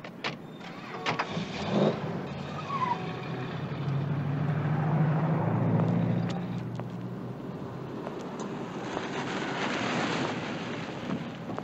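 Street traffic: a car's engine swells a few seconds in and fades again. A few sharp knocks come near the start.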